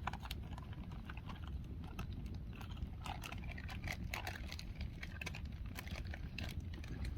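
A person chewing a bite of smoked caribou steak: irregular small wet clicks over a low steady rumble.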